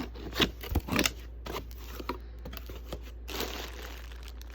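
Packaging crinkling and rustling, with a few short sharp handling noises, as the parts of an air horn kit are unwrapped.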